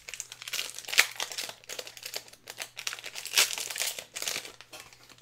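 Foil Pokémon booster pack wrapper crinkling and tearing as it is opened by hand: a run of irregular rustles, loudest about a second in and again around three and a half seconds in.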